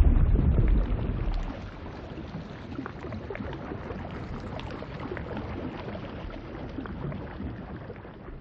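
Underwater ambience sound effect: a rushing wash with scattered small bubble pops, loud and deep for about the first second and a half, then quieter, fading out near the end.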